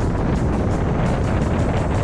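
Steady wind rushing over a GoPro's microphone in paraglider flight, a heavy low buffeting with a faint rapid flutter on top.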